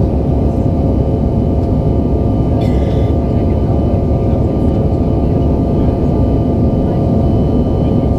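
Steady drone of a Bombardier CRJ-900's rear-mounted GE CF34 turbofans and airflow heard inside the cabin: a dense low rumble with several steady hum tones. A short, higher-pitched sound comes about three seconds in.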